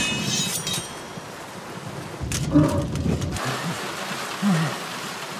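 Armoured swordsmen in a two-handed sword fight grunting and growling with effort over a steady hiss of rain. A ringing clang of steel sounds right at the start.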